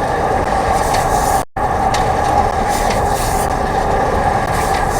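Steady mechanical running noise with a constant mid-pitched hum. It cuts out completely for an instant about a second and a half in.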